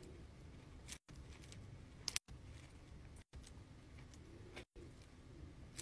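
Faint handling of diamond painting canvases with plastic cover film: soft rustles and crinkles, a sharper crinkle about two seconds in, over a low room rumble. The sound drops out for an instant several times at the edits.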